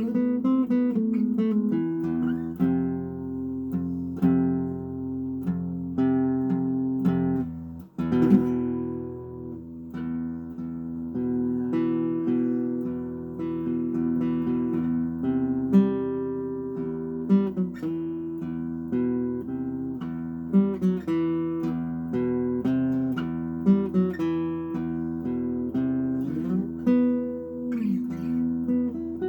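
Washburn acoustic guitar being played: picked notes and ringing chords one after another, with a brief break about eight seconds in.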